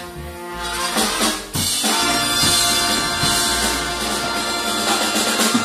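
Live big band jazz: saxophones, trumpets and trombones over a drum kit. About a second and a half in the band comes in loudly on a long held chord with drum hits, which stops near the end.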